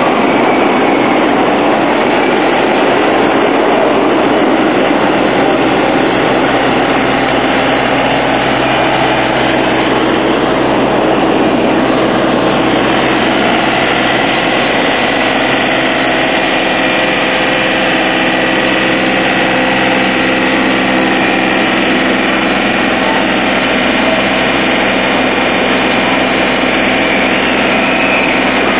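Green-and-yellow John Deere compact tractor's engine running steadily at low speed as it slowly backs a heavy float trailer into place.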